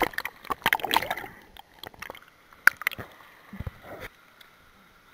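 Swimming-pool water splashing and sloshing right at the microphone as the camera dips at the surface: a dense run of sharp splashes for the first second or so, then scattered splashes until about four seconds in.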